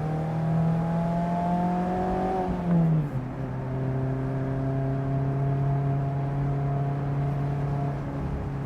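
A 2024 Mazda MX-5 Miata's four-cylinder engine through an aftermarket GoodWin Racing exhaust, heard from the open cockpit. The revs climb slowly, drop about three seconds in, then hold steady at a lower pitch while cruising.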